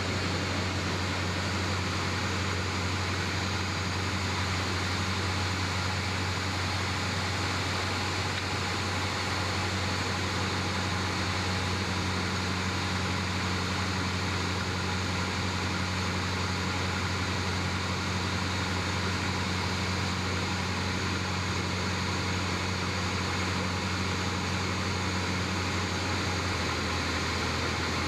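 A single-engine Cessna's piston engine and propeller droning steadily, heard inside the cabin over a constant rush of air, on final approach. The low hum changes slightly near the end.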